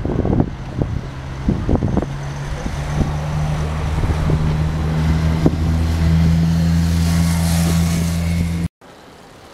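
Motorcycle engine running close by: a few uneven blips at first, then a steady low drone that rises slightly in pitch about six seconds in. It cuts off suddenly near the end.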